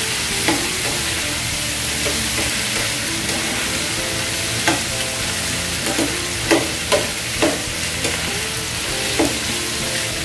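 Diced carrots and chicken sizzling in a frying pan as they are stirred with a spoon: a steady sizzle with the spoon knocking and scraping against the pan now and then.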